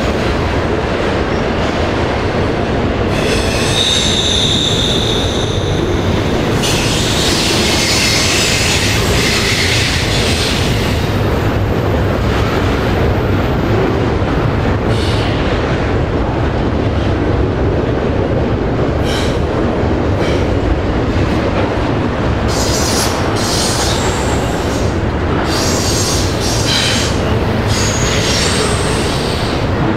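Long freight train's cars rolling steadily past with a loud rumble, the wheels squealing in bursts: a long high squeal about three seconds in, another around eight seconds, and several shorter squeals in the last third.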